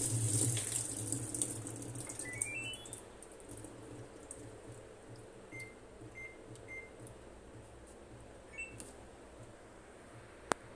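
Samsung top-load washing machine: water running into the tub fades out over the first few seconds. The control panel then beeps, first a quick rising run of tones, then three short even beeps, then a brief two-tone beep. A single sharp click comes near the end.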